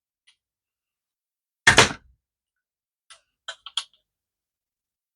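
Wires being pulled off a DC inverter refrigerator's control board: one sharp knock about two seconds in, then a few light clicks.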